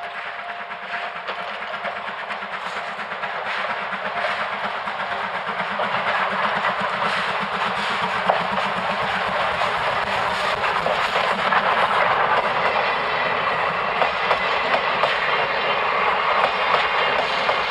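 JNR C11 steam tank locomotive working hard up a steep grade with the regulator well open, its rapid exhaust beats growing steadily louder as it approaches.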